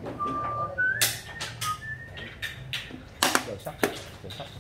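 Sharp clacks of xiangqi pieces being moved and set down on a wooden board, one about a second in and a quick cluster past three seconds. In the first two seconds someone whistles a few short notes that step upward in pitch.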